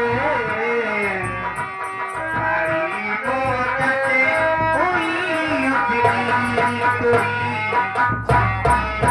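Instrumental stage music from a nautanki troupe's band: a bending melody over a steady drum beat.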